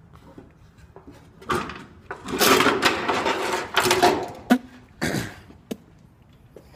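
A door being opened: a loud scraping rustle lasting about two seconds, a little over two seconds in, then a few sharp knocks.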